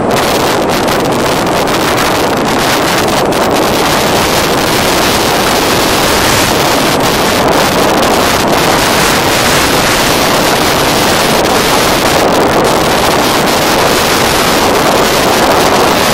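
Loud, steady wind rushing over the microphone on a moving motorbike, mixed with the motorbike's engine and road noise.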